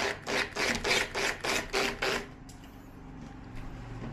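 Rhythmic rasping, rubbing strokes, about four or five a second, that stop a little over two seconds in. A low hum begins to rise near the end.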